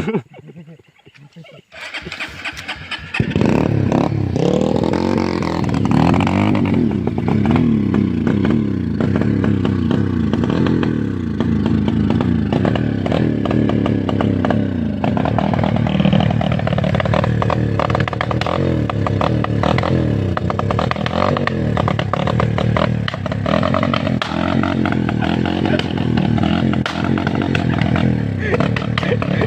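Dompeng-type single-cylinder diesel engine on a homemade odong-odong mud vehicle being started: rapid firing pulses for a second or so, catching about three seconds in. It then runs loud, the revs rising and falling.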